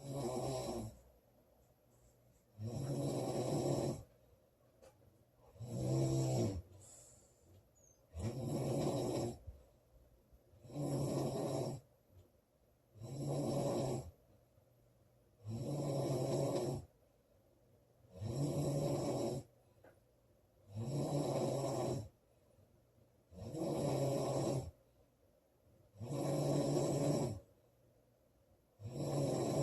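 A woman snoring loudly in a steady rhythm, one snore of about a second roughly every two and a half seconds, with quiet breathing between.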